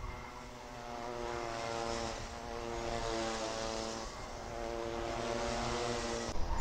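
Racing karts' small two-stroke engines heard from trackside at a distance as a steady droning note, its pitch shifting about two and four seconds in as the karts come off and on the throttle through a corner.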